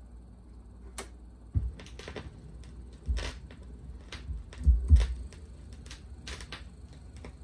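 Technics SL-B202 turntable's stylus riding the lead-in groove of a vinyl record before the music starts: scattered crackle and pops of surface noise. A few heavy low thumps near the middle come from a hand touching the turntable's front panel.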